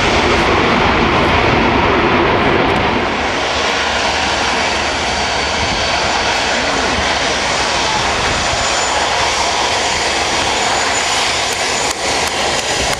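Airbus A380 jet engines running steadily as the four-engined airliner rolls along the runway: a loud, even rushing noise.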